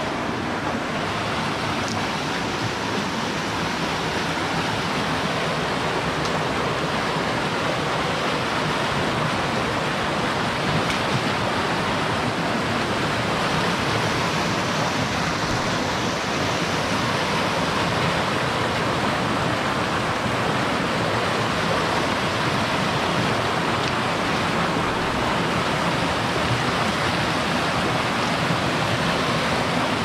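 Steady rush of river water tumbling over waterfalls and rapids.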